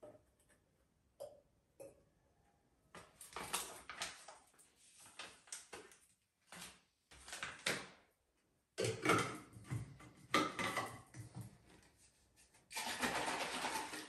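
Making a drink-mix shake: scoop clicks and rustling of the plastic powder pouch, with handling knocks against a plastic bottle. Near the end, the bottle is shaken hard with the liquid sloshing inside.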